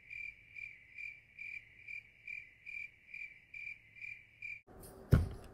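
Cricket chirping sound effect: one high chirp repeated about two and a half times a second, cutting off suddenly near the end, the stock 'crickets' gag for an awkward silence. A sharp snap follows just before the end.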